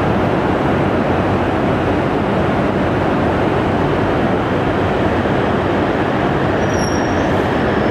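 Hayate Shinkansen train pulling out of the platform: a steady, loud rumble of running noise.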